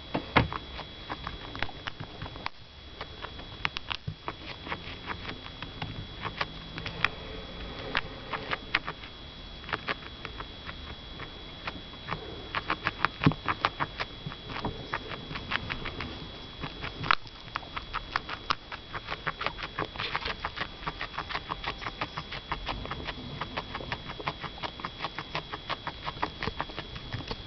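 A guinea pig chewing cubes of apple and tomato: quick, crisp crunching clicks of its teeth, several a second, in irregular bursts.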